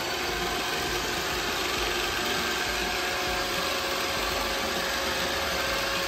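iRobot Roomba 677 robot vacuum running across a tile floor after starting a cleaning cycle: a steady whir with a faint steady whine underneath.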